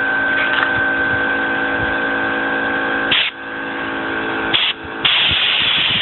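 Compressed air from an air hose: a steady motor whine, from what is likely the air compressor, runs under the first half. Short blasts of air hiss from the nozzle about 3 and 4.5 seconds in, and a continuous loud blast of air starts at about 5 seconds.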